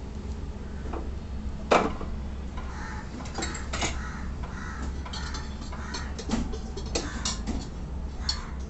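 Metal utensils and a cooking pan clinking and knocking, one sharp knock early on and scattered clicks after it, with harsh cawing calls repeating in the background.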